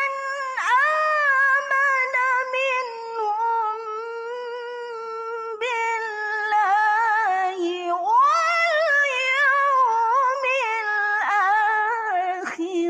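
A woman reciting the Quran in the melodic tilawah style, holding one long ornamented phrase with wavering, trilled pitch. About eight seconds in, the pitch dips and swings back up.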